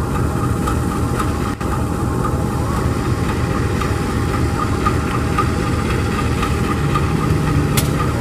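CC 203 GE diesel-electric locomotive idling at standstill: a loud, steady low engine rumble with a faint steady higher tone. A single brief click near the end.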